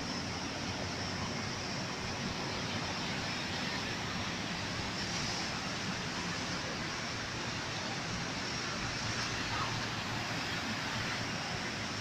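Sea surf breaking and washing over rocks: a steady, even rushing.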